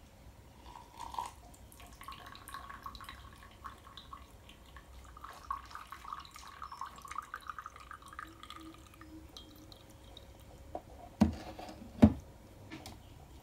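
Dark brew trickling and dripping from a cloth filter sock into a ceramic mug, its pitch rising slightly as the mug fills, then dying away about nine seconds in. Near the end come two sharp knocks.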